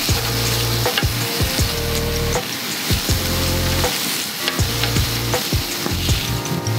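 Meat slices and crisping bits of fat sizzling on a hot plate, with a steady frying hiss. Chopsticks click against the plate several times as the raw slices are laid down.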